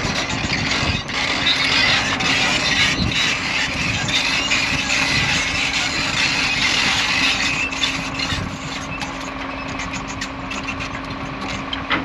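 Diesel engines of a large excavator and a Caterpillar D11 bulldozer running with a steady engine note, louder for the first eight seconds or so, then settling somewhat lower.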